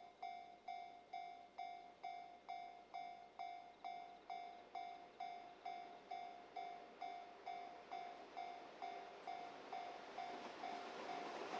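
Japanese railway level-crossing warning bell ringing steadily, about two strikes a second, signalling an approaching train. The rumble of the oncoming freight train rises near the end.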